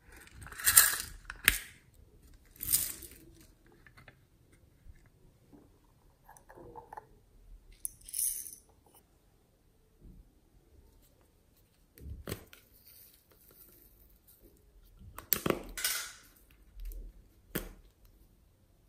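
Hands handling and opening small hard plastic cases and capped tubes: scattered clicks, clacks and rustles a few seconds apart, with the loudest cluster near the start and another about fifteen seconds in.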